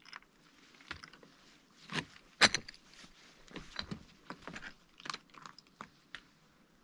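Footsteps on loose lava-rock rubble: irregular crunches and the clink of stones shifting against each other, with one sharp knock about two and a half seconds in.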